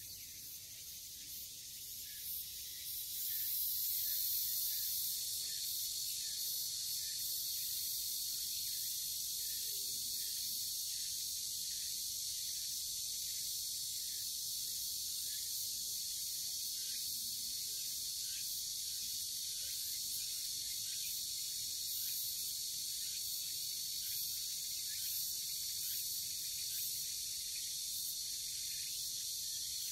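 Steady, high-pitched chorus of summer insects, growing louder about three seconds in, with faint regular chirps beneath it.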